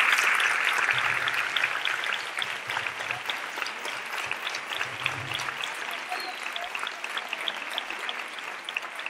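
Audience applauding, loud at first and gradually dying away to scattered individual claps.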